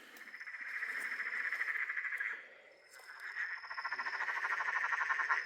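Perron's tree frog calling: two long, rapid rattling trills, each about two seconds and growing louder as it goes.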